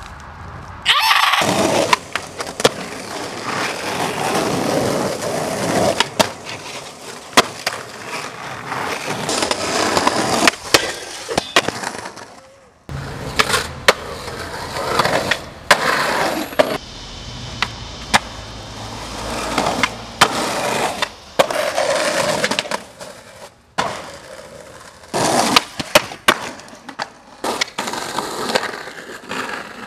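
Skateboard wheels rolling over pavement, broken by sharp clacks as the board is popped and lands tricks.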